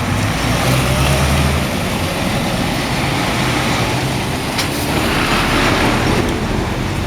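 Vehicles passing, with a low, steady engine hum over road noise; the hum is strongest in the first couple of seconds, and another engine note rises about five seconds in.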